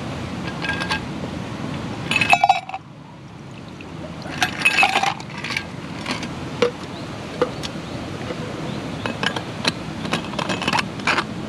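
A stainless steel camp mug and a metal vacuum flask clinking as a drink is poured, with the loudest sharp, briefly ringing clinks about two seconds in and more about five seconds in. Near the end there is a run of small clicks and taps as the flask's cap is worked.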